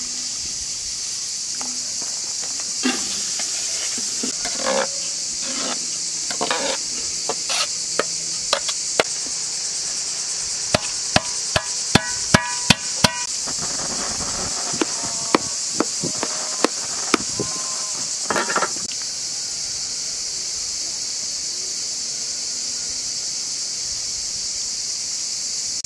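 Steady high-pitched insect chorus, with sharp clinks and taps of a metal utensil against an aluminium cooking pot scattered through the first two-thirds, thickest near the middle.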